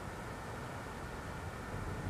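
Low, steady droning rumble under a layer of hiss: a lull in a pulsing low noise of unknown origin, which the uploader describes as a strange knocking noise throbbing through the air at night.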